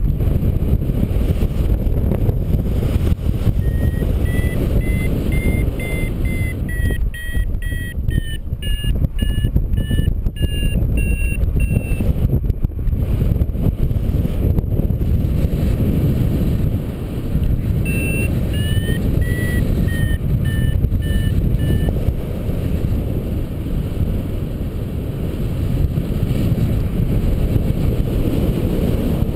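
Wind buffeting the microphone in paraglider flight, with a flight variometer beeping in short, evenly spaced pulses. Two runs of beeps, the first for about nine seconds and a shorter one later, each rising then falling in pitch, the vario's signal that the glider is climbing in lift.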